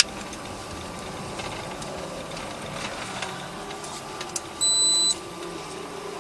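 Steady hum inside a patrol car, with one loud electronic beep about half a second long near the end.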